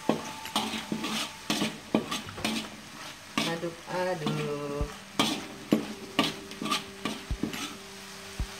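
A spatula scraping and stirring a thick ground chili spice paste around a dry wok, in repeated strokes about every half second to a second, over a light sizzle as the paste is cooked dry on high heat before any oil goes in.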